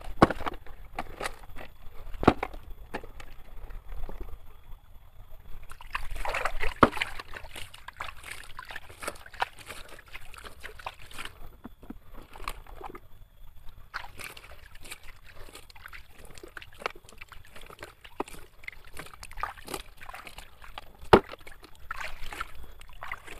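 Water sloshing and trickling as a toy sand dump truck is washed by hand, with sharp knocks of the toy now and then. The loudest knock comes near the end.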